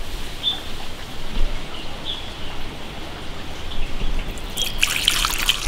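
Water trickling and dripping, with a few faint bird chirps. About five seconds in, a busier crackling, splashing sound starts.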